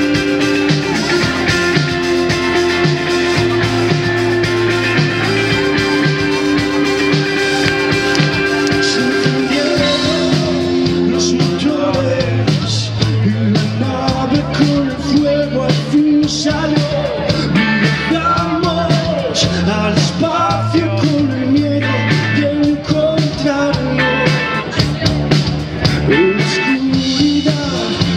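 Live rock band playing, with a man singing over the band from about halfway through.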